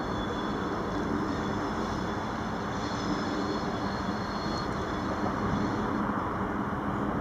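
Freight train of tank wagons behind a locomotive rolling along at a distance: a steady rumble, with a faint high whine over roughly the first six seconds.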